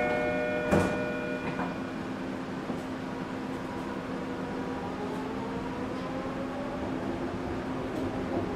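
Detroit People Mover train at a station: chime tones ring out and a sharp thump comes about a second in, then a steady hum, and from about halfway a slowly rising whine as the train's linear induction motors pull it away.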